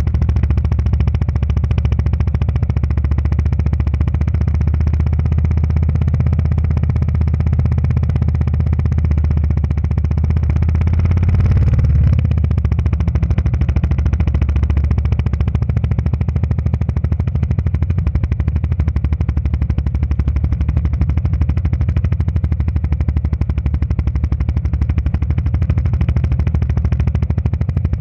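Motorcycle engine running under way, close up, its rapid firing pulses steady and strong in the low end, swelling briefly about twelve seconds in.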